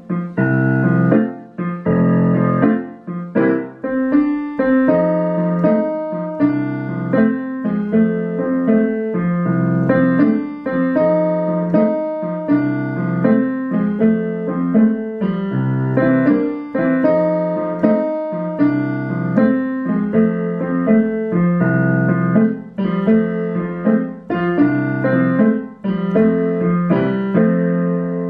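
A slow blues played in piano tone on a digital piano: the instrument's recorder plays back a recorded part while a second part is played live on the keys, chords and notes struck in a steady, even rhythm.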